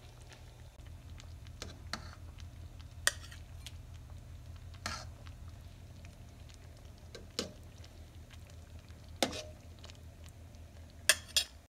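A metal ladle scooping patties in salsa from a stainless steel pot into a ceramic bowl, with scattered short clinks and wet scraping, the two loudest clinks in quick succession near the end. A steady low hum runs underneath.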